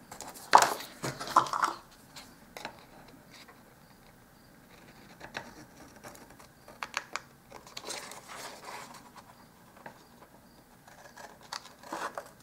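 Scissors snipping through heavy cardstock in short, crisp cuts with pauses between them. Near the start there is a sharp clack and a second of paper and tool handling as the drawing tools are put aside and the sheet is picked up.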